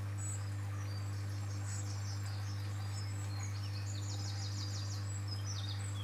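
Small birds chirping and singing short, quick high trills, busiest in the middle, over a steady low hum.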